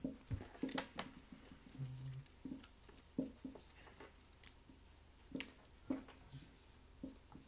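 Trading cards being handled and set down on a table: scattered light clicks and taps.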